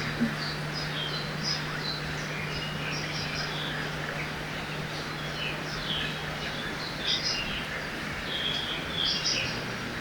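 Forest ambience beside a river: many small birds chirping and twittering in short bursts throughout, over a steady rush of flowing water.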